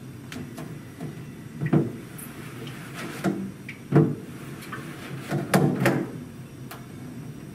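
Squeegee dragged over a wet photographic print held against a plastic squeegee board, giving a handful of scrapes and knocks, the loudest about four seconds in and just before six seconds in.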